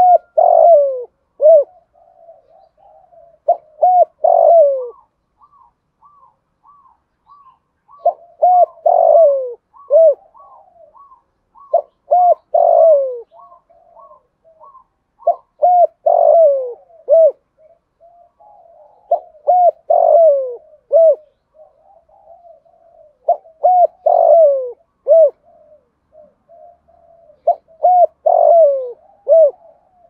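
Spotted dove cooing: a loud phrase of several hooting coos, repeated about every four seconds.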